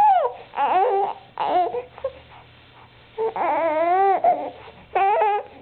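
Baby babbling: a string of high-pitched vocal sounds, about five in all, the longest a drawn-out one about three seconds in that rises and then falls in pitch.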